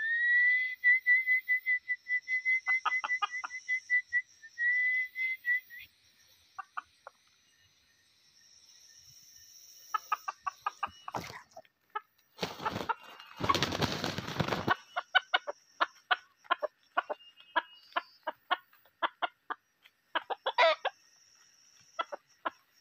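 Red junglefowl roosters clucking in rapid, sharp calls, with a loud burst of wing flapping about two-thirds of the way through, as a lured wild cock is caught. A high, fast-pulsing trill runs through the first six seconds or so.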